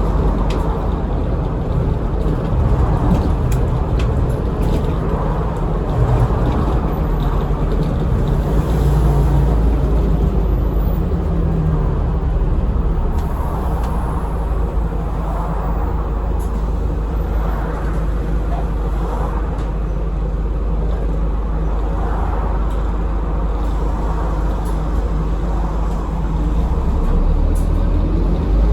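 Scania N230UD Enviro400 double-decker bus heard from inside the passenger saloon while driving: a steady low engine rumble with road and body noise and occasional small rattles.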